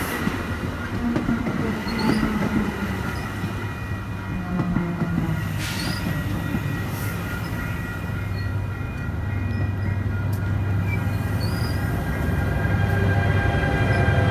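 Bombardier bilevel commuter coaches rolling slowly along a station platform: a steady rumble of wheels on rail with thin, steady wheel-squeal tones above it. A low hum grows louder near the end as the locomotive draws near.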